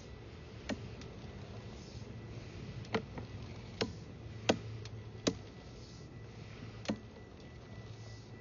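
Six sharp, irregularly spaced clicks over a steady low hum.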